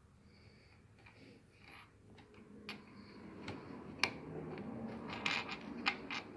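LEGO plastic pieces being handled and pressed together on a wooden tabletop: a few sharp clicks and taps, clearest about four seconds in and again several times near the end, over a low rubbing of fingers and bricks that grows from about two seconds in.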